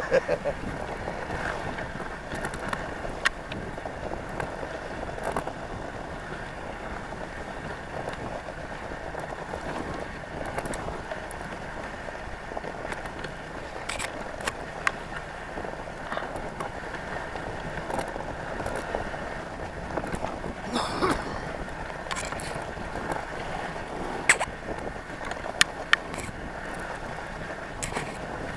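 Dog sled gliding along a packed snow trail: a steady hiss of the runners over snow, broken by a few short sharp clicks.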